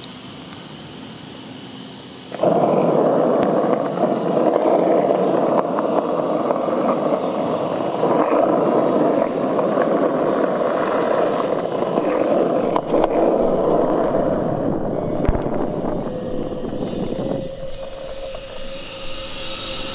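Skateboard wheels rolling over fairly smooth asphalt, a steady rolling noise that starts about two seconds in and eases off near the end.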